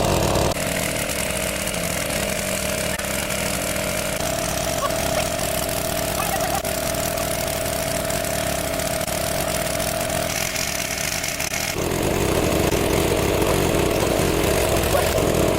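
Small gasoline engine of a water pump running steadily. About twelve seconds in, its note drops lower and gets louder.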